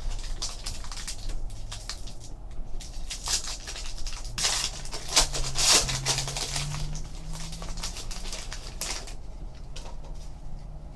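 Trading cards being handled and sorted by hand: an irregular run of light clicks and rustles of card stock, busiest around the middle.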